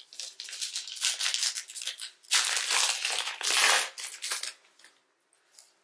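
Plastic trading-card pack wrapper crinkling as it is handled and crumpled, loudest in the middle and dying away about five seconds in.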